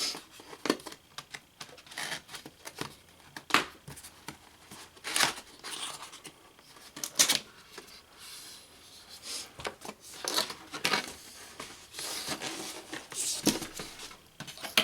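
A cardboard product box being opened and unpacked by hand: an irregular run of scrapes, rips and rustles of cardboard and packaging.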